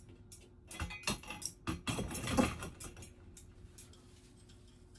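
Metal ceiling-fan mounting hardware being handled: a quick run of clinks and rattles with one short scrape over the first three seconds, after which it goes still apart from a faint steady hum.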